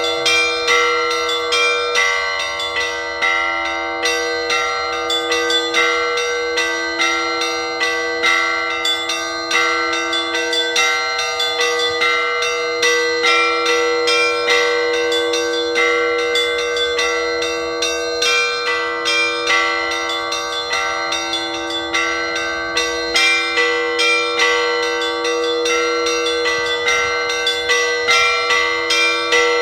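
Orthodox church bells ringing in a continuous peal. Smaller bells are struck in a quick, repeating pattern several times a second over a deeper bell tone that rings on steadily underneath.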